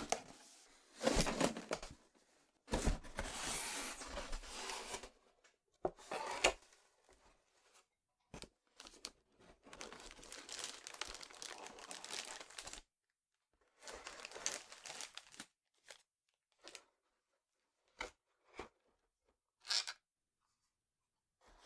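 Keyboard box packaging being torn open and handled: several stretches of tearing and crinkling, then a few short, separate clicks and taps near the end.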